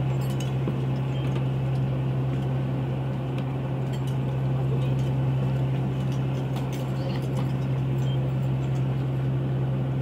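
Steady low hum of a squid-jigging boat's machinery, with scattered light metallic clinks.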